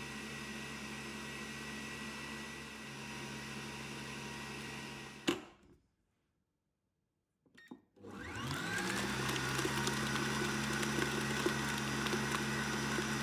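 Kenwood Cooking Chef stand mixer's motor whirring as its balloon whisk beats almond cream. About five seconds in it stops with a click and goes silent, then starts again and winds up to a higher, louder speed.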